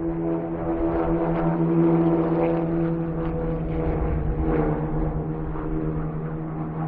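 Autonomous racecar's engine running at a steady speed, with no rise or fall in pitch.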